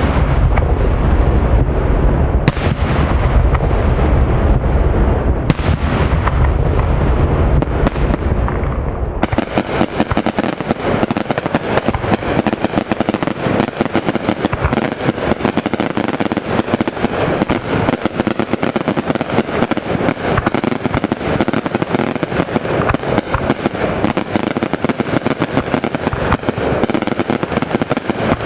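Daytime fireworks: a dense, rumbling barrage of bursts with a few sharp cracks, switching abruptly about nine seconds in to a continuous rapid crackle of many small bangs.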